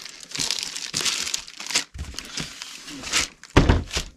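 Clear plastic wrapping crinkling around cardboard boxes as they are handled and lifted out of a shipping carton, with a dull thud about three and a half seconds in as a box is set down.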